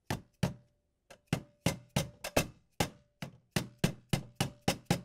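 Red mallet tapping a new metal external gear into the gear case housing of a KitchenAid stand mixer, pressing it into place. About fifteen quick, sharp taps, roughly three a second.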